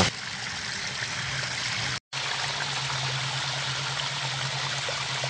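Small cascade of clear stream water falling over a stone ledge and splashing into a shallow pool, a steady rushing sound. It cuts out for an instant about two seconds in.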